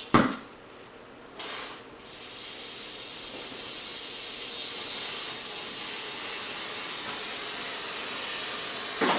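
A couple of brief clunks, then a gas torch hissing steadily, building up over a few seconds. The torch is heating the tractor's exhaust pipe to free the old muffler.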